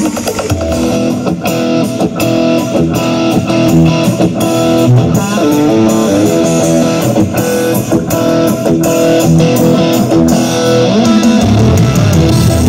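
Loud guitar-led music played over a sound system for a speaker demo: plucked and strummed electric guitar over bass, with a steady beat.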